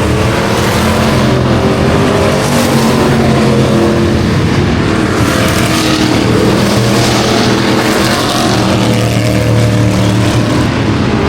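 Dirt track race cars running in a pack, several engines at once, their pitches rising and falling as they accelerate and lift around the track.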